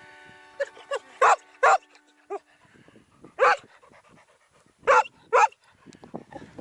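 A dog barking: five loud, short barks, mostly in quick pairs, with a few fainter yaps between.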